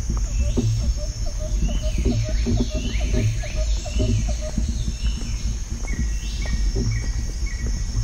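Woodland birds singing, with repeated short falling chirps and a run of quick notes, over a loud low rumble of wind on the microphone. Soft footsteps on the earth path land about once a second.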